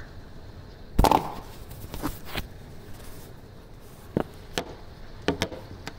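Steady rain noise broken by a series of sharp knocks and taps, the loudest about a second in with a brief ring, then several smaller ones near the end.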